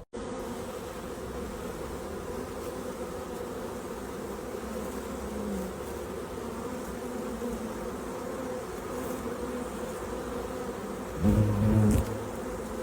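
Bees buzzing in a steady, continuous drone. Near the end a louder, lower buzz or rumble swells for under a second, like a bee passing close.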